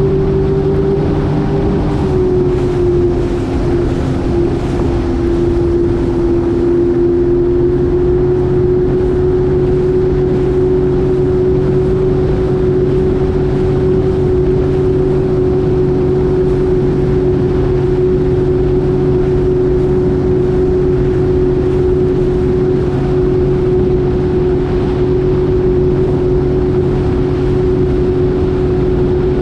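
Jet ski engine running at a steady cruising speed, its pitch easing down slightly about two seconds in and then holding, over the hiss of water rushing past the hull.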